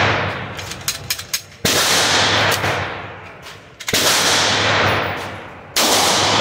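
Three pistol shots about two seconds apart, each followed by a long echo off the walls of the indoor range. A few light clicks sound about a second in.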